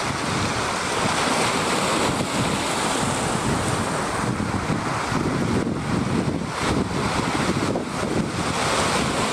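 Waves surging and breaking among shoreline rocks, with wind buffeting the microphone.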